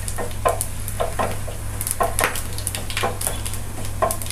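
Wooden spatula scraping and knocking against a non-stick frying pan, stirring whole spices such as fennel and cumin seeds in hot oil, with the spices sizzling as they fry. The strokes come irregularly, several a second.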